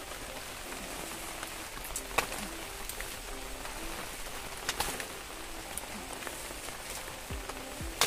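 Large wet leaves rustling as they are pulled and broken off the plants, with three sharp snaps spread through.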